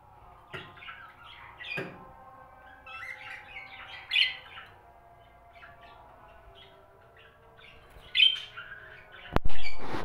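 Budgerigars chirping and squawking in short, scattered bursts of chatter. Near the end come a few sharp knocks, louder than the calls.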